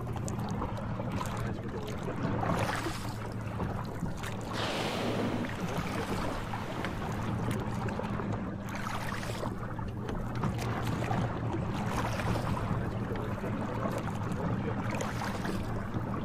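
A fishing boat's engine running steadily with a low hum, under rushing wind and water noise that swells several times, loudest about five seconds in.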